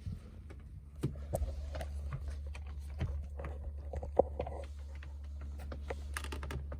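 Scattered light clicks and knocks as rag-wrapped locking grips are worked onto a Land Rover Freelander 1 climate control knob to pull it off, over a steady low hum.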